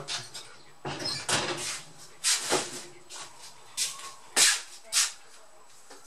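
Footsteps and scuffs on a wooden parquet floor, an irregular run of short knocks with the sharpest about four and a half seconds in.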